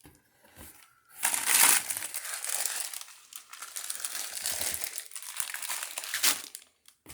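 Packaging crinkling and rustling as groceries are handled and pulled out of a shipping box, loudest just after a second in, with another sharp rustle a little after six seconds.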